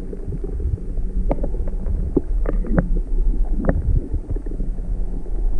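Low rumbling wind on the microphone and water noise around a kayak, with a few light clicks and knocks scattered through it.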